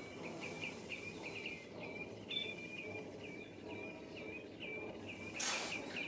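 Common redshank giving its repeated courtship call: a steady run of short, hooked piping notes, about three a second. A brief burst of noise comes near the end.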